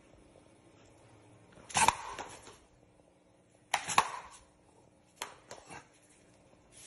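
Small dog in a rubber dinosaur mask making short, sharp snapping sounds, three times about two seconds apart, the last a quick run of small ones, as it acts aggressive toward the person's hand.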